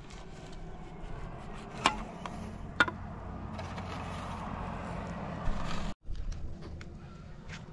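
A knife cutting raw chicken on a metal tray, with two sharp clinks of the blade against the tray about two and three seconds in.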